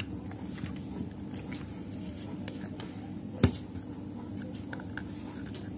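Plastic parts of an air-cooler submersible pump clicking and rubbing as the impeller cap is fitted back onto the pump body, with one sharp click about three and a half seconds in. A steady low hum runs underneath.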